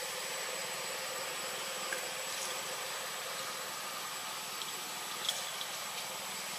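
Steady background hiss with a faint, even hum and a thin high steady tone, broken only by a couple of faint clicks.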